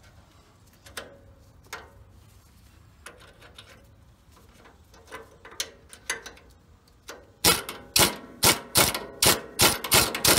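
A few light clicks and knocks, then about seven seconds in a pneumatic impact wrench hammers in a rapid string of short bursts as it runs down the coilover's lower mounting bolt.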